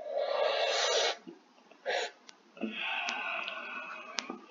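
A person breathing hard through the mouth against the burn of very spicy snack puffs: a loud rushing breath about a second long, a short one, then a longer, quieter one. A sharp crunch comes near the end as a puff is bitten.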